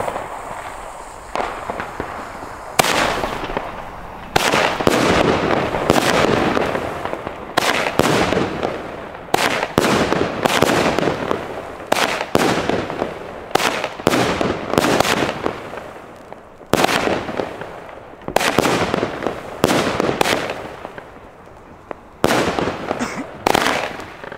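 Tropic Little Star, a small 240 g consumer firework battery, firing its shots one after another. After a quieter couple of seconds while the fuse burns, the first shot goes off about three seconds in, and the rest follow at roughly one a second, each a sharp launch followed by its burst.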